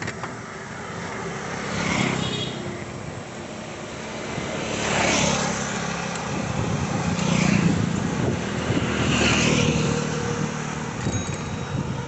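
Motor vehicles passing a moving bicycle on a road: engine hum and tyre noise swell up and fade away about four times, over a steady rumble.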